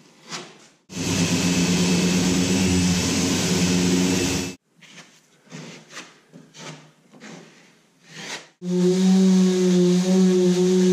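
A loud power tool runs steadily for about three and a half seconds. Then come a few seconds of short, irregular scrapes of a plastic spreader working filler into the hull. About three quarters of the way in, a hand-held delta sander with a dust-extraction hose starts up and runs steadily with a deep hum, sanding the faired filler.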